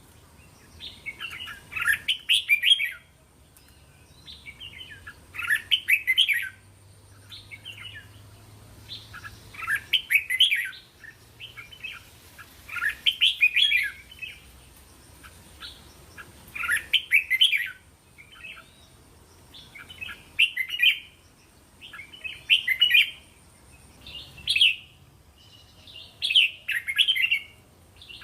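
Red-whiskered bulbul singing: short, bright song phrases repeated every two to four seconds, with softer chatter notes between them.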